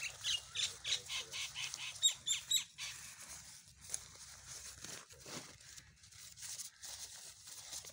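Crumpled notebook paper rustling and crinkling in quick strokes as hands open up and lift away the paper wrapped around bunches of grapes, busiest in the first three seconds and sparser after.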